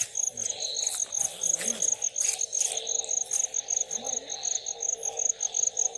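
Cricket chirping steadily, a high, evenly pulsed trill of about six pulses a second, with faint voices in the background.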